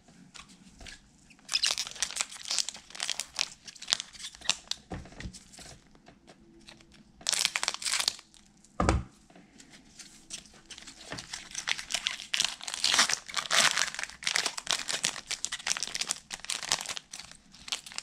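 Foil wrapper of a trading-card pack crinkling in irregular bursts as gloved hands handle it and pull it open, densest in the last few seconds. Two dull thumps land about five and nine seconds in.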